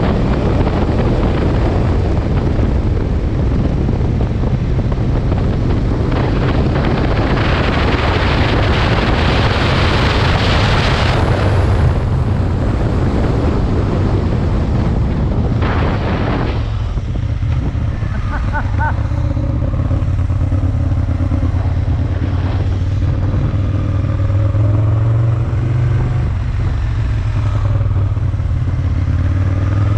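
Aprilia Tuono 1000's V-twin engine running under way, with heavy wind noise over the microphone for the first half. About sixteen seconds in the wind noise drops away, and the engine note is heard rising and falling with the throttle.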